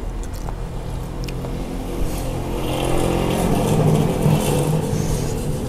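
A motor vehicle's engine running steadily, growing louder from about two seconds in, peaking around four seconds, then easing back, as if a vehicle revs or passes close by.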